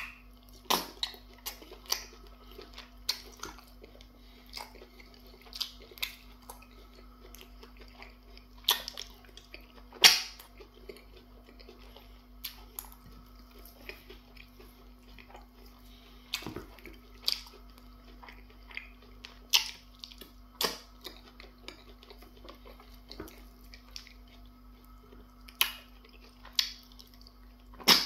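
Close-up, wet chewing and mouth smacks of a person eating semo fufu with slimy okra soup by hand, in irregular sharp smacks that come every second or two. A steady low hum sits underneath.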